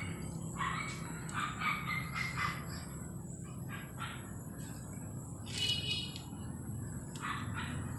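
Birds chirping repeatedly, with one higher call just before the six-second mark, over a faint steady low hum.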